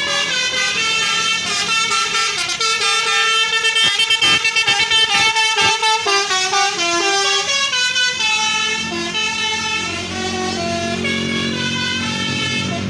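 Indonesian tour bus's musical multi-tone air horn (a "telolet" horn) playing a tune of stepping notes, with the bus's engine rumble growing near the end.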